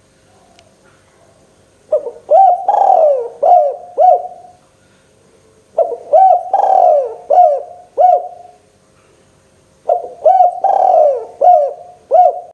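Spotted dove cooing close up: three phrases about four seconds apart, each a run of five or six bending coo notes.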